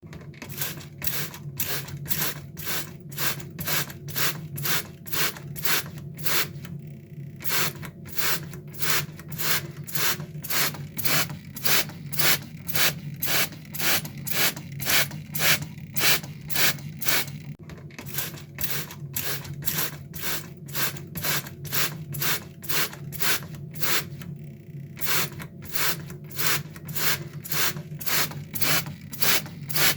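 Water spray squirting in quick repeated short hisses, about two to three a second, with two brief pauses, over a steady low hum.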